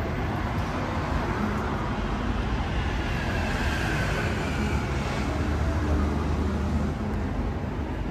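Steady low rumble and hiss of background traffic noise, with a faint falling whine a few seconds in.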